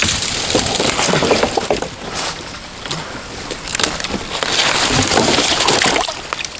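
Wooden boards of a makeshift bridge breaking and clattering as it is pulled apart, in two loud spells: one at the start and another about four and a half seconds in.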